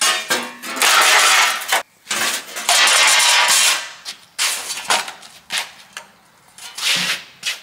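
Rusty steel plates dropped and dragged on a concrete floor: about four stretches of metallic clanging and scraping, the longest near the start, with a short one near the end.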